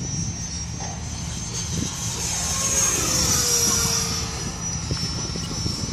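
The 90 mm electric ducted fan of a radio-controlled F-16 model jet whines high as the plane makes a pass. It swells to its loudest about three seconds in and drops a little in pitch as it goes by, then fades. A steady low rumble runs underneath.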